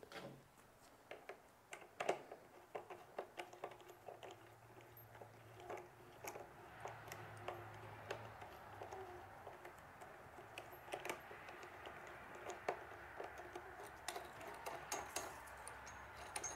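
Faint, irregular clicks and taps of a camera-gear clamp being handled, fitted around a metal conduit tube and tightened by its knob.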